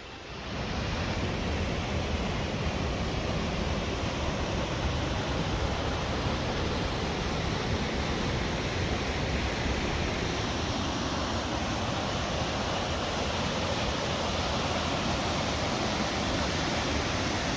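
Water pouring down a tall waterfall, about 250 feet high: a loud, steady, even rush.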